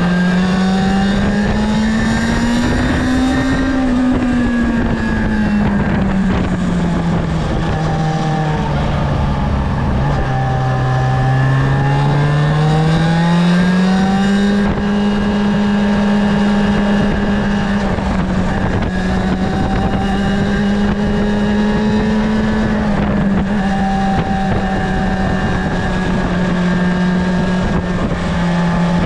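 Yamaha Fazer 6's inline-four engine through its stock exhaust, ridden under way. The revs rise briefly, sink slowly to their lowest about eleven seconds in, climb again, then hold steady with only small dips.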